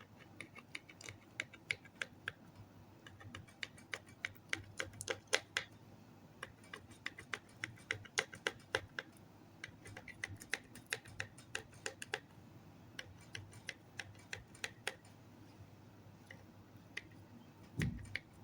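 Slime being kneaded and folded by hand, making a run of irregular sticky clicks and small pops that come thickest in the middle. A low thump near the end.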